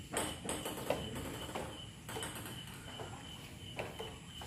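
Quiet hall between table tennis points: a ping-pong ball tapped a few times at irregular intervals as the server gets ready, over a faint steady high-pitched whine.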